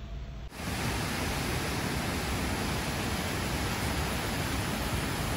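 Steady rushing of falling water, an even full-range hiss that starts abruptly about half a second in and holds level throughout.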